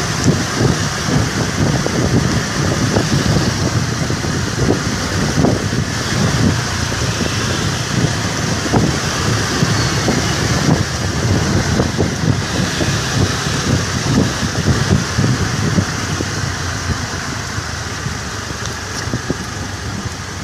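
Motor scooter engine running at riding speed, with wind buffeting the microphone. The sound eases off a little near the end.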